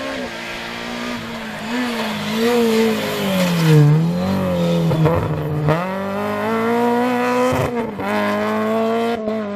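Renault Clio rally car passing at speed: the engine note drops as it slows and shifts down, loudest as it goes by, then the engine picks up sharply and climbs through the revs with a quick gear change about two seconds later as it accelerates away.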